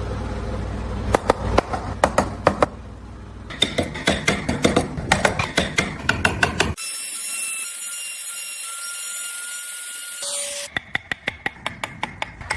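Woodworking tool sounds in several short cuts: sharp taps and knocks on wood over a low hum, then a stretch of high-pitched power-tool whine with hiss in the middle, then a run of quick, evenly spaced clicks near the end.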